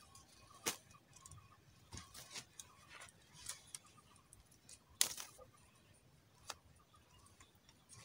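Scattered light clicks and taps of a woven bamboo basket trap and its wooden trigger sticks being handled and set on the ground, the loudest tap about five seconds in.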